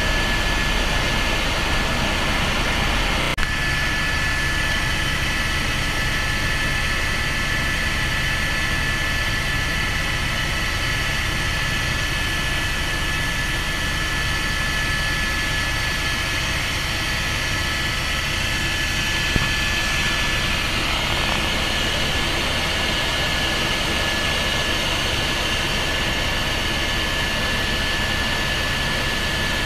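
Helicopter cabin noise in flight: the turbine engine runs with a steady high whine over a constant low rumble from the engine and rotor. A faint click comes about three seconds in.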